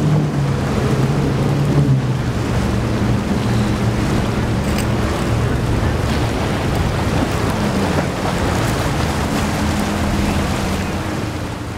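Triple Mercury 275 outboard engines on a Fountain 38 center-console fishing boat running at speed through choppy water: a steady engine drone that shifts a little in pitch, over the rush of spray and waves.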